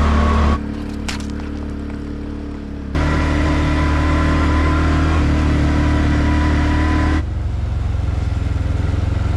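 ATV engine running steadily while riding over a dirt forest track, with a deep rumble. The sound jumps abruptly in level and pitch about half a second, three seconds and seven seconds in.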